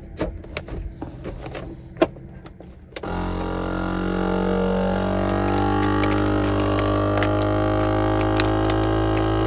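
Countertop vacuum sealer: plastic-bag rustling and a few clicks as the bag is set in and the lid pressed shut. About three seconds in, its vacuum pump starts with a loud, steady droning hum that keeps running.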